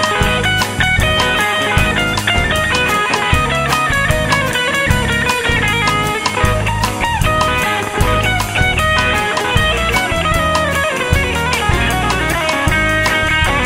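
Background rock music with guitar and drums, steady and loud.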